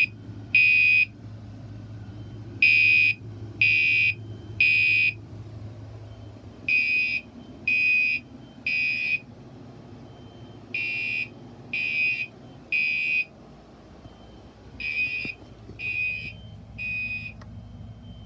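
Fire alarm sounding the temporal-three evacuation pattern: high-pitched beeps in groups of three, a pause, then three again, repeating. It grows fainter toward the end.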